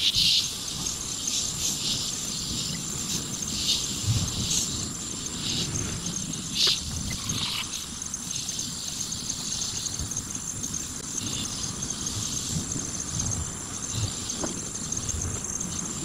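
Chorus of singing insects: a steady high-pitched trill, with louder buzzy calls breaking in every second or two.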